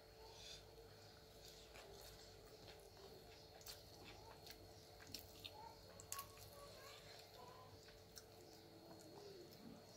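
Faint close-up eating sounds: scattered small clicks and soft squishes as an uttapam is torn by hand and dipped in coconut chutney, with chewing, over a faint steady hum.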